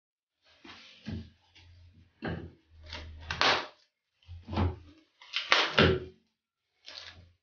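Plastic cling film being pulled off its cardboard roll and stretched over a bowl by hand: a series of crackling, crinkling rustles with brief pauses and a few soft knocks.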